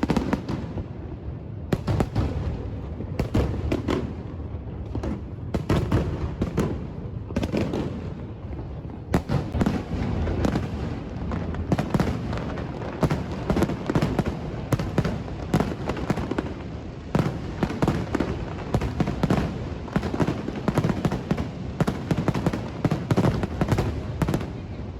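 Aerial fireworks display: a dense, unbroken run of bangs and crackling bursts, often several a second, over a steady low rumble of shells going off.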